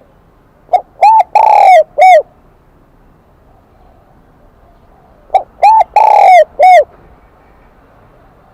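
Spotted dove cooing in the high-pitched 'kim đồng' voice: two four-note phrases about four and a half seconds apart. Each phrase has two short notes, then one long falling note, then a short one.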